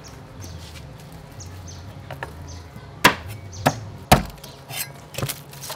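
A kitchen knife chopping down through lemongrass stalks onto a thick round wooden chopping board: about five sharp knocks, starting about two seconds in.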